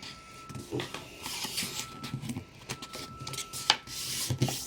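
A square sheet of paper being folded in half into a triangle: rustling and scraping as it is handled and the crease pressed, with a sharp crinkle about three and a half seconds in.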